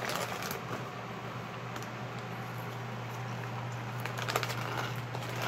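Corn chips crunching as they are chewed, in short crisp bursts, with a rustle of the chip bag about four seconds in as a hand reaches in. A steady low hum runs underneath.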